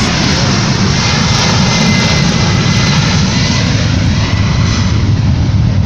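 Jet airliner's engines passing low overhead: a loud, steady roar with a thin high whine in it.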